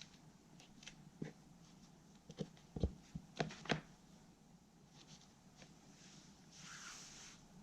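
Scattered light knocks and clicks of hands handling broken table pieces and tools during an epoxy repair, the sharpest cluster a few seconds in, followed near the end by a brief soft scraping rustle.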